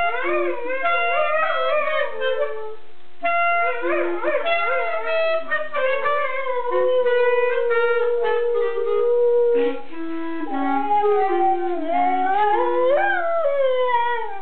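A dog howling along to a clarinet. The clarinet plays a run of held notes while the dog's howls slide up and down in long wavering wails over them.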